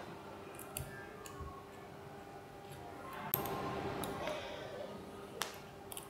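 Faint, scattered metallic clicks and taps of a hex key and small screws against a metal hydrofoil quick-release module as a sacrificial anode is screwed on, a handful of sharp ticks a second or so apart.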